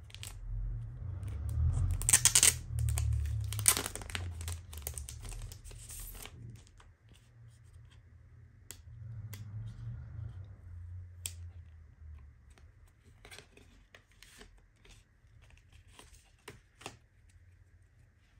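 Hands tearing open and unwrapping paper and plastic packaging, loudest in the first few seconds, then quieter rustling and sliding of card and a plastic sleeve with scattered light clicks.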